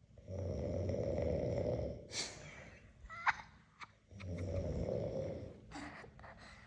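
An elderly woman snoring: two long snores of about two seconds each, with a couple of short sharp sounds in the gap between them.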